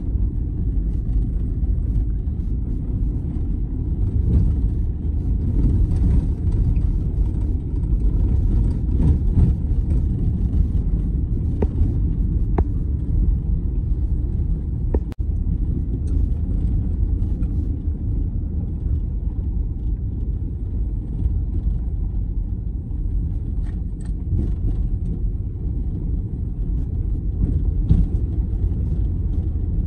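Road noise heard inside a vehicle's cab while driving on a gravel road: a steady low rumble of tyres on gravel and engine, with a few faint sharp ticks.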